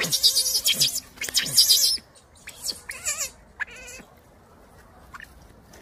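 A young macaque screaming: two loud, high-pitched bursts in the first two seconds, then a few shorter wavering squeals around three seconds in.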